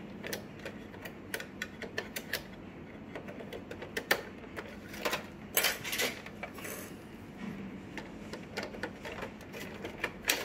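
Irregular plastic clicks and taps from the carriage and print head of an Epson L210 ink-tank printer being handled during disassembly, the loudest a little after four seconds in and a close run of clicks between five and six seconds.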